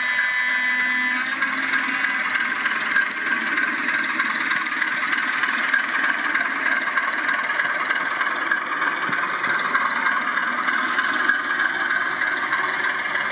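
Steady whirring hiss of H0-scale model trains running on a layout, with a sustained high pitched tone that stops about a second in.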